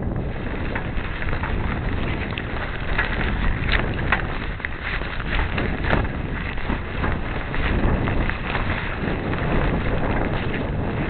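Wind buffeting the microphone of a small sailboat under way, with water splashing against the hull in scattered short splashes and taps.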